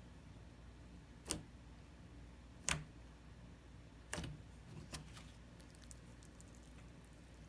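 Slime being handled, giving about five short sharp clicks spread through the first five seconds, the loudest a little under three seconds in, then a few fainter ticks.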